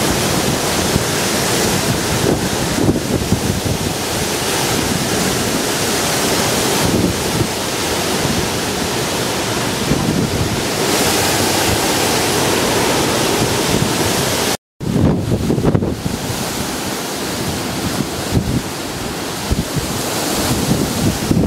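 Tropical-storm-force wind blowing hard and gusting, buffeting the microphone in a loud, rushing roar, with a brief silent cut about two-thirds of the way through.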